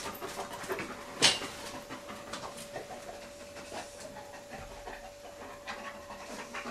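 A dog panting and sniffing as it searches for scent, with one louder sharp noise about a second in. A faint steady hum sits underneath.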